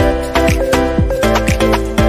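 Upbeat, afrobeat-style background music with a steady beat of deep, pitch-dropping kick drums about twice a second under sustained synth chords.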